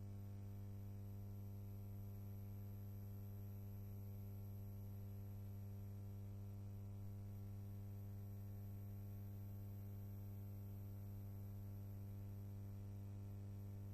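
Steady electrical hum, strongest at a low pitch with a weaker tone above it, over a faint hiss. It does not change at all, and no other sound is heard.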